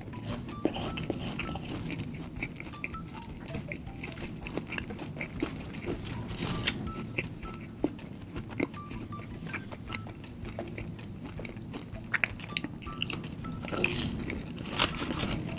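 Close-miked chewing of food with thick honey mustard sauce: wet mouth sounds with many small crunches and clicks, a few sharper near the end.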